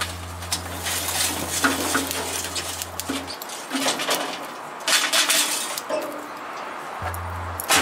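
Hot charcoal briquettes poured out of a metal charcoal chimney starter onto unlit briquettes in a grill, clinking and tumbling, with a cluster of sharp clinks about five seconds in and a single sharp knock near the end.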